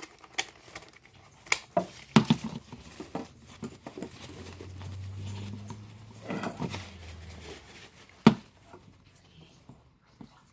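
Plastic clicks and rustling as an animatronic Baby Yoda toy is handled and dressed, with a low hum for about three seconds and a short whimper-like call partway through.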